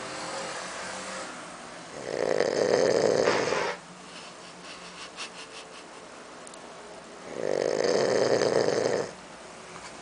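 A sleeping pet snoring: two loud, drawn-out snores about five seconds apart, each lasting under two seconds, with quieter breathing between them.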